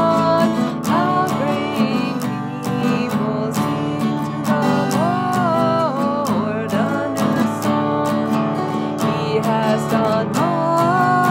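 A woman singing a hymn melody while strumming chords on an acoustic guitar.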